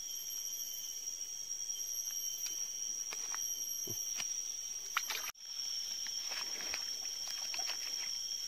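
Steady chorus of insects sounding in several high, unbroken tones, with scattered small clicks and rustles over it. The sound drops out for an instant about five seconds in.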